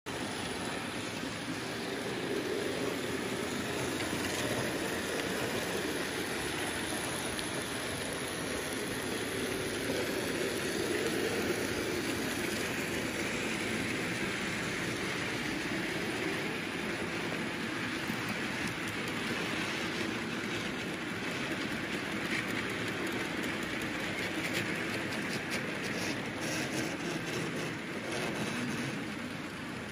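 Model SBB Be 6/8 Krokodil locomotive pulling a long train of open freight wagons along model railway track: its motor and the wagon wheels on the rails make a steady running noise.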